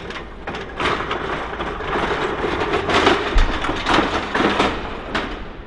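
Steel-tube stand carrying a riveted aircraft skin section being moved across a concrete floor: a rumbling, rattling roll that builds about a second in and dies away near the end.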